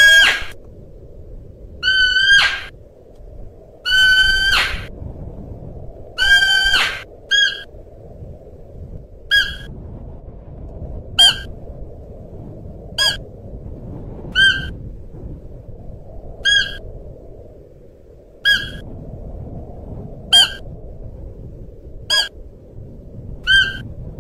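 Siberian musk deer calling: high-pitched calls, four longer ones in the first seven seconds and then short single calls about every two seconds, over steady low background noise.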